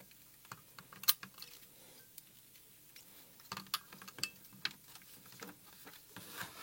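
Light clicks and taps of a Radiomaster Boxer radio transmitter's plastic case being handled and fitted back together, with one sharp click about a second in and a run of clicks around the middle.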